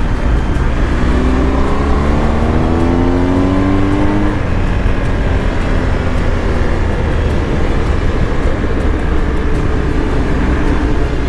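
BMW R 1250 GS Adventure motorcycle under way, with a steady rush of wind and road noise. About a second in, a rising engine note is heard for about three seconds as the boxer twin pulls harder, then it sinks back into the wind.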